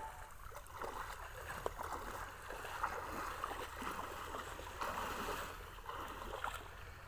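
River water sloshing and splashing irregularly as people wade through it pushing hand nets on poles, with a steady low rumble underneath.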